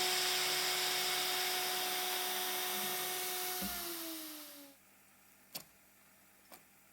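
Spindle of a homemade PrintNC CNC mill running with a steady whine and hiss, then spinning down: after a low thump about three and a half seconds in, the whine falls in pitch and dies away about a second later. Two faint clicks follow.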